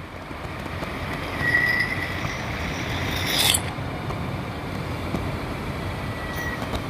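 Steady rush of a fire pumper running at pressure while its master-stream monitors flow a large volume of water, with a short louder hiss about three and a half seconds in.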